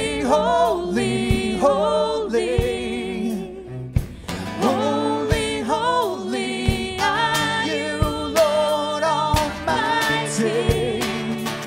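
Worship music: a sung melody over a band with a regular drum beat.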